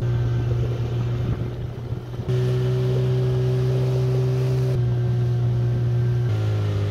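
Outboard motor running steadily, driving an inflatable boat across open water. Its even hum changes pitch abruptly three times: about two seconds in, near five seconds, and near the end.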